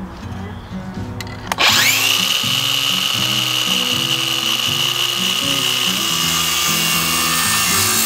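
Craftsman cordless circular saw spinning up about a second and a half in with a rising whine, then cutting through a wooden 1x3 board with a steady high whine, over background music.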